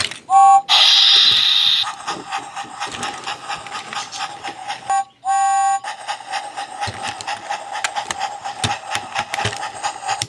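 Talking James Trackmaster toy engine's sound chip playing its steam effects through a small speaker. A short whistle tone is followed by a burst of steam hiss, then rapid rhythmic chuffing over a steady tone. About five seconds in the sequence breaks for another short whistle, and the chuffing resumes.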